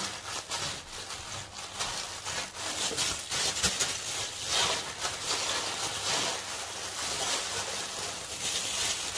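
Thin plastic bag crinkling and crackling as dry baked puff-pastry cake layers are crushed by hand inside it, the crumbs crunching, in irregular handfuls.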